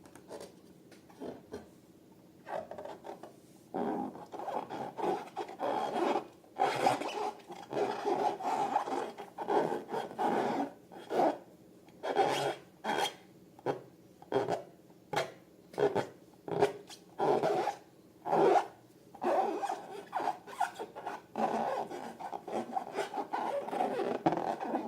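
Slime-filled rubber balloons being rubbed and squeezed by hand: a quick, irregular run of rubbing, squishing strokes that starts sparse and gets busier about four seconds in.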